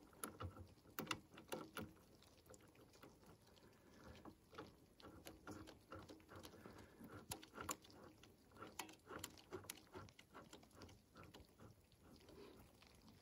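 Near silence with faint, scattered small clicks and ticks: a battery-terminal bolt being threaded in by hand and the cable lugs handled.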